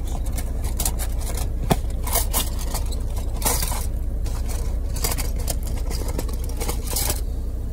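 Sausage sizzling in a hot skillet: irregular crackles and pops over a steady low hum.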